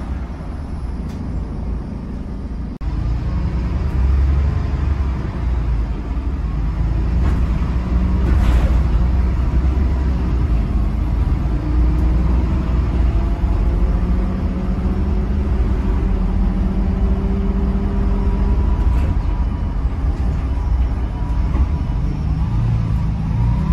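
Volvo B8RLE bus's rear-mounted six-cylinder diesel engine running, heard from inside the passenger saloon as a loud, steady low drone. It grows louder about three seconds in, and a faint whine comes and goes through the middle.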